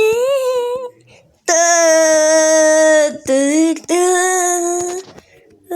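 A voice singing wordless held notes, imitating a brand logo jingle. There is a short note at the start, then a long steady note of about a second and a half, a brief lower note, a second held note of about a second, and one more short note at the end.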